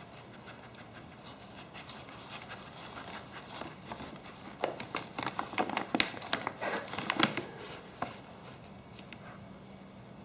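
A small dog rummaging with its nose in a fabric shopping bag, making faint rustling and the crinkling of a plastic treat packet. The noises come as a run of short rustles and clicks from about two seconds in, busiest around the middle.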